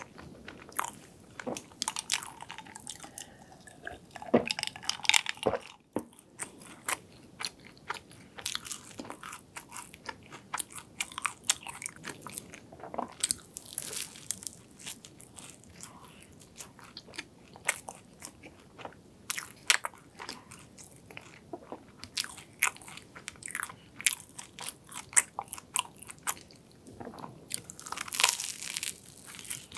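A croffle being bitten and chewed close to the microphone: crisp crunches and crackles of the pastry crust, with bursts of bites around the middle and near the end.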